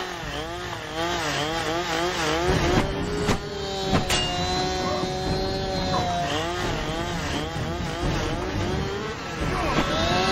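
Chainsaw engine revving, its pitch rising and falling in quick repeated bursts, then held at a high steady rev for a few seconds at a time. There are a few sharp knocks about three to four seconds in.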